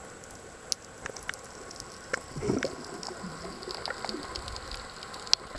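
Underwater sound picked up by a submerged camera: scattered sharp clicks and crackle over a steady wash, with a muffled, wavering low sound starting about two seconds in and lasting about a second and a half.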